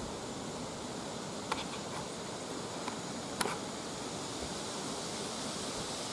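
Steady woodland background hiss with a faint high-pitched insect drone, broken by four small sharp clicks, the loudest about three and a half seconds in.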